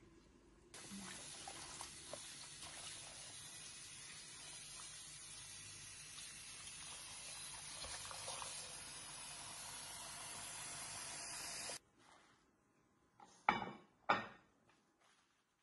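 Water running and splashing while radicchio leaves are washed by hand in a bowl; it starts about a second in and cuts off abruptly near the end. Then two sharp knocks follow, half a second apart.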